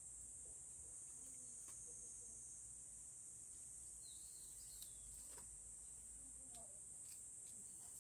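Faint, steady high-pitched drone of insects, with a few soft snaps and rustles as green onion stalks are peeled and cut with a knife.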